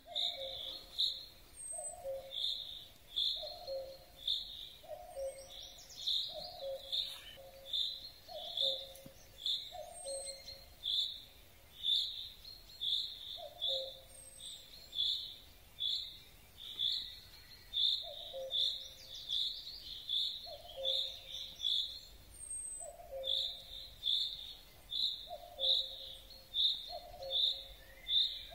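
Common chaffinch repeating one short, high call over and over, a little more than once a second, with a brief pause about three-quarters of the way through. It is an unusual sound for a chaffinch, easily taken for another species. Behind it a lower two-note call repeats at about the same pace.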